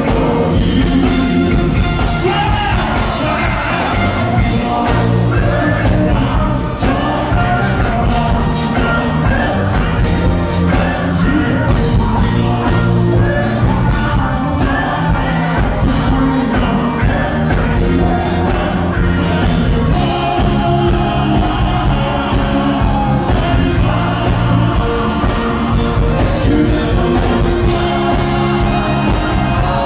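Live soul vocal group singing over a full band of electric bass, drums, electric guitar and keyboards, heard from within the audience.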